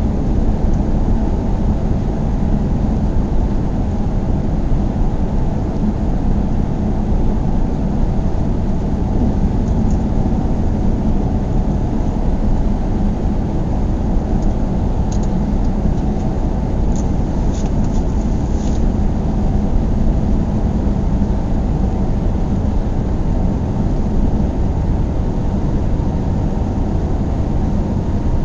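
Car driving along the road: a steady low rumble of engine and tyre noise with a faint constant hum, and a few faint high ticks about halfway through.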